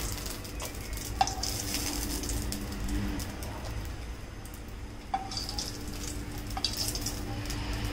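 Hot oil sizzling lightly in a frying pan, with three sharp clinks of a metal spatula and spoon against the steel pans, over a steady low hum.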